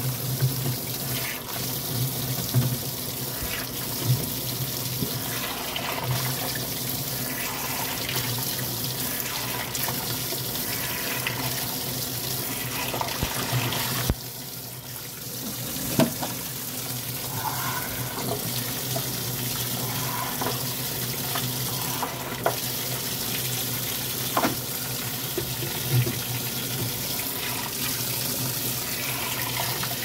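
Top-loading washing machine running with its tub full of water: steady water sloshing and running over a pulsing motor hum, with a few sharp clicks or knocks. The owner takes the noise for a sign that the machine is broken.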